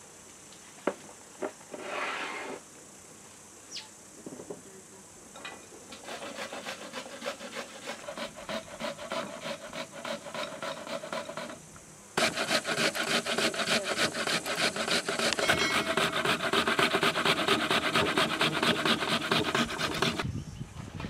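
Metal box grater rasping in rapid, even strokes as food is grated on it into a glass bowl; the strokes start about a quarter of the way in and grow much louder past the middle. A few light knocks sound near the start.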